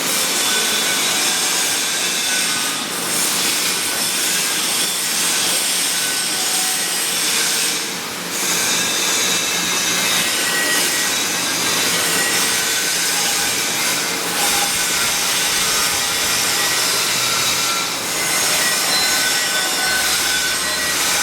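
Angle grinder grinding on a carbon steel pipe weld: a steady, harsh grinding noise with a few brief dips where the disc eases off the metal.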